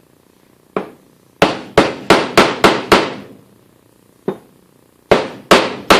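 Hammer blows driving a bearing onto a belt sander's shaft: a light tap, then a quick run of six sharp blows, a pause with one more tap, and another run of blows starting near the end.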